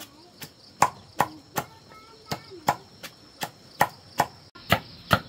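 Knife chopping on a cutting board: a steady run of sharp strikes, about three a second.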